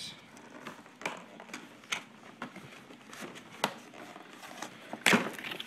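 Hands opening a printed cardboard product box: scattered small taps, clicks and scratches of fingers and cardboard, with a louder scrape about five seconds in.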